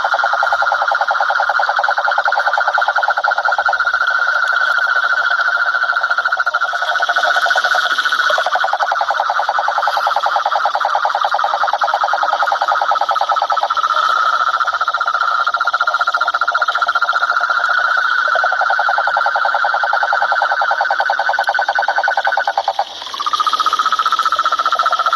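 Cane toads (Rhinella marina) calling in long, continuous, rapidly pulsed trills that overlap at two pitches, so the sound never breaks. Near the end it drops out briefly, then a new trill starts.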